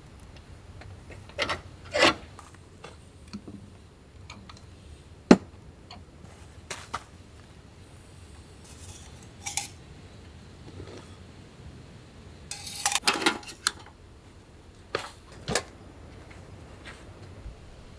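Scattered knocks, clicks and clinks of hard camping gear being handled and set down. The sharpest single knock comes about five seconds in, and a short run of clattering about thirteen seconds in.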